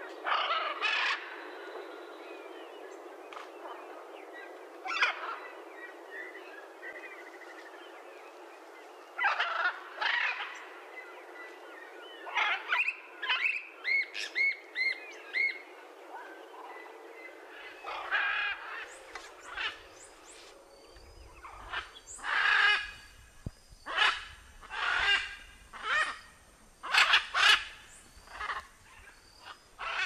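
Blue-and-yellow macaw squawking: loud, short calls, spaced a few seconds apart at first, with a quick run of short repeated notes around the middle, then coming in rapid succession over the last dozen seconds.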